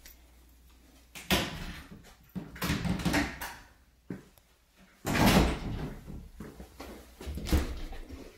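Doors being handled and opened, ending with a framed glass shower door: a series of separate knocks and rattles, the loudest about five seconds in.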